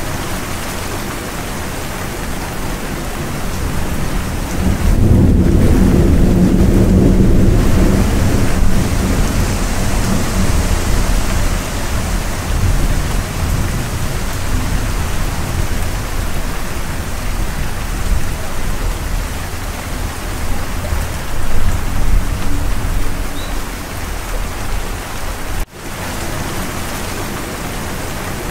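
Steady heavy rain with thunder, a long low rumble swelling about five seconds in and lasting a few seconds, and a smaller rumble about three quarters of the way through. The sound breaks off for an instant near the end.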